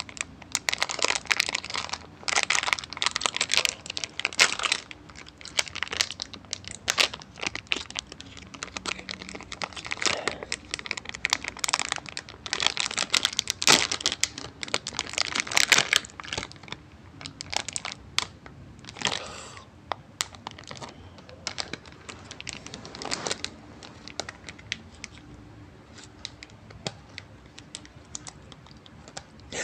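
Plastic snack wrapper crinkling and tearing as it is handled and opened by hand. The crackling is dense through the first half and grows sparser after about sixteen seconds.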